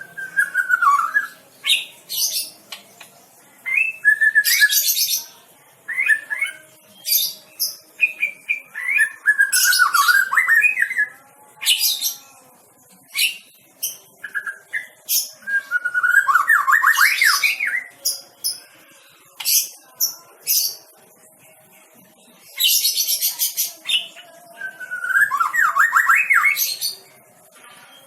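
White-rumped shama (murai batu) singing a loud, varied song: short whistled phrases that slide down and up, mixed with high, scratchy rattling bursts, delivered in repeated bouts with short pauses between them.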